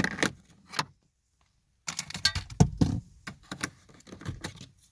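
Sharp plastic clicks and rattles as the small trim covers around a Tofaş Doğan's instrument cluster are pried loose by hand, a quick string of knocks broken by a short gap about a second in.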